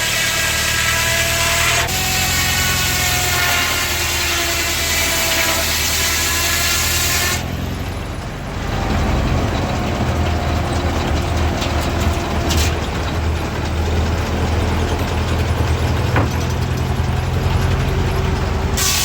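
Old engine-driven machinery running with a steady low engine hum. For the first seven seconds a ringing whine of several tones rides on top; it then cuts abruptly to a lower, more uneven engine rumble, and the sound changes again just before the end.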